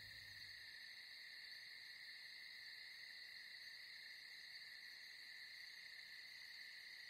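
Faint, steady chorus of night insects such as crickets, a high even shimmer with no other sound over it.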